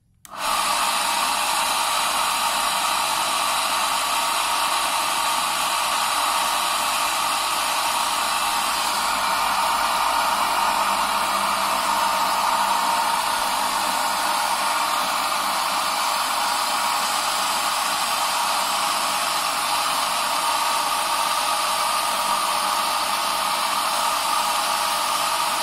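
An electric fan and motor switch on about a third of a second in and then run with a steady, loud whooshing hiss. The source is a homemade cotton candy machine, whose spinner head sits in an old stove pan, together with the heat gun beside it.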